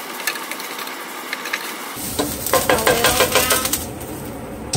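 Grated garlic sizzling in hot oil in a skillet. About two seconds in, a spatula stirs and scrapes across the pan for a second or so, and it knocks once against the pan near the end.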